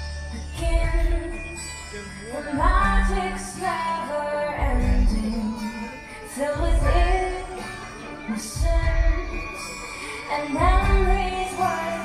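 Show music with a female singer carrying the melody over a full backing, with deep bass hits about every two seconds.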